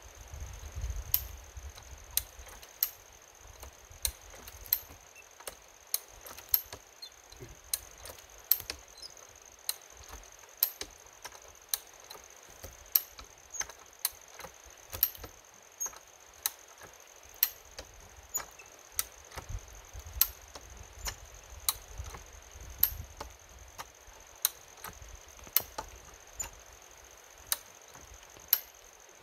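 Hi-Lift farm jack being pumped: sharp metallic clacks of its climbing mechanism catching on the steel bar, about one a second, as the handle is worked up and down to lift a chained tree stump.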